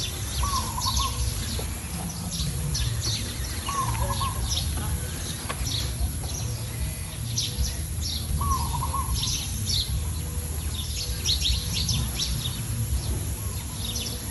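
Small birds chirping, and a short wavering call repeated three times at intervals of a few seconds, over a steady low rumble.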